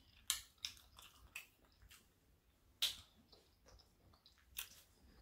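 Close-miked eating: chewing with a few short, wet clicks and smacks spread out, the loudest about three seconds in.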